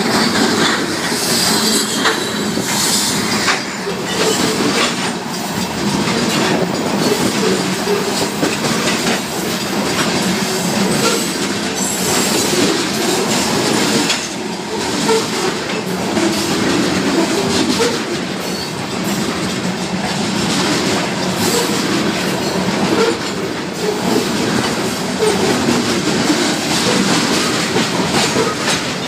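Freight train of covered hopper cars rolling past close by: a steady rumble with wheels clacking over the rail joints. The crossing's mechanical bells ring throughout.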